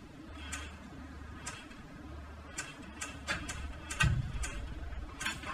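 Airsoft rifles firing single shots: about ten sharp snaps at uneven intervals, the loudest about four seconds in with a low thump under it.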